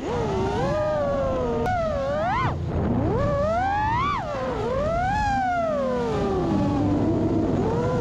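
Brushless motors and props of a 5-inch FPV freestyle quadcopter whining. The pitch rises and falls with the throttle: sharp climbs to peaks at about two and a half and four seconds in, a long falling glide after that, and another climb near the end.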